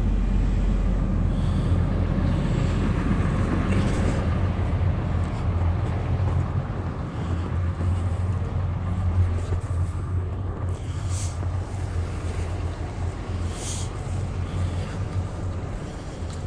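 Cat 323F excavator's diesel engine idling steadily as it warms up, with a low, even hum that grows fainter toward the end.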